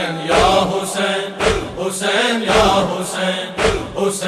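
Male voices chanting a noha refrain in a group, over a steady beat of about two strikes a second.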